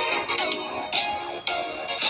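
Samsung Galaxy J7 Pro ringtone playing: a repeating electronic melody of bright notes with sharp attacks, some sliding down briefly in pitch.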